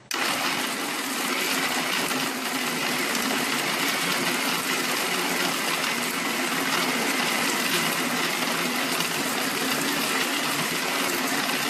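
Electric mixer grinder switching on suddenly and running steadily at speed, its blades grinding raw minced mutton in a stainless steel jar.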